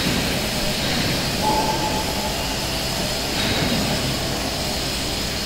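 Two-colour roll-to-roll stack-type flexographic printing press running, its kraft paper web feeding over the rollers: a steady mechanical noise.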